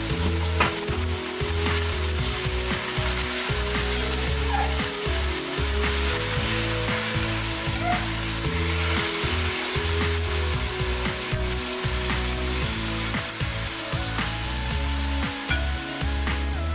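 Pork pieces sizzling in hot oil in a metal wok, with a steady hiss, while a metal spatula stirs them, clicking and scraping against the pan.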